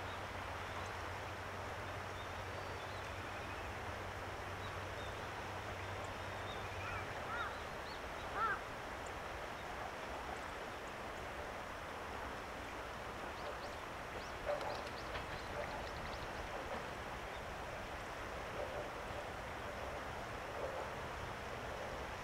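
Open-air rural ambience: a steady background hiss with a few short bird chirps, the clearest about a third of the way in and again past the middle. A faint low hum fades out about a third of the way through.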